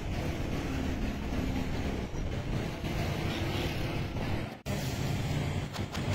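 Steady din of a busy street with traffic running, dense and unbroken apart from a brief dropout about four and a half seconds in.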